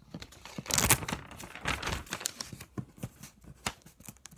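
Paper cutouts rustling and crinkling as they are handled: a run of irregular crackles and rustles, loudest about a second in.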